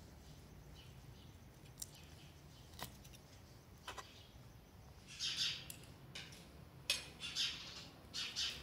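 Three light clicks of a fork on a metal serving tray, then birds chirping in a few short bursts in the last half.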